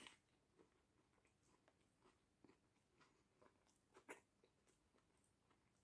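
Very faint eating sounds from a crispy-battered fried chicken sandwich: a bite right at the start, then sparse soft clicks of chewing.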